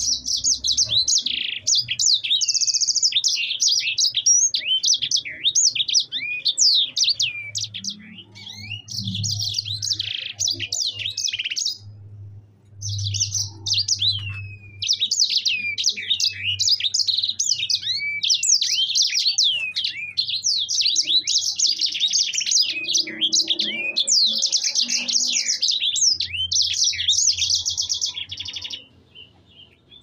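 Caged streaky seedeater (sanger) singing a long, rolling song of fast high chirps, trills and quick down-slurred notes, in full song (gacor). The song breaks off briefly about twelve and fifteen seconds in and stops shortly before the end.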